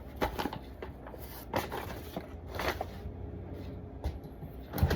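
Containers being handled and set down on a refrigerator shelf: several light knocks and clatters, the loudest just before the end, over a steady low hum.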